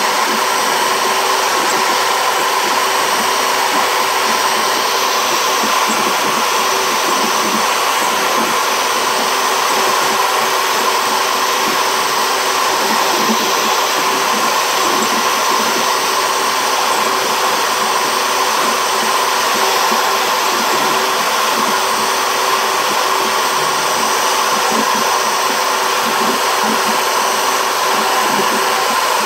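CNC router spindle motor running with a steady high whine while its bit cuts lettering into a plywood plaque, with an uneven rumble from the cut underneath.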